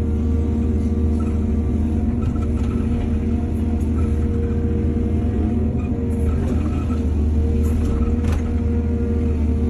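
Excavator's diesel engine running steadily, with a few light knocks about six to eight seconds in.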